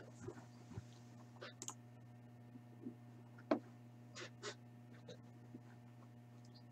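A few faint, scattered clicks and light handling noises over a steady low hum.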